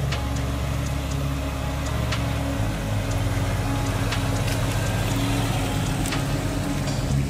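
Off-road vehicle driving along a dirt trail: steady engine and tyre noise, with a few sharp knocks and rattles.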